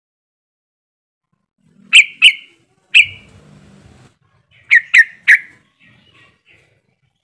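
Yellow-vented bulbul (trucukan) calling: short, sharp, loud notes in small groups, two about two seconds in, one a second later, then three quick ones followed by softer trailing notes. It is a lure call meant to set other birds singing.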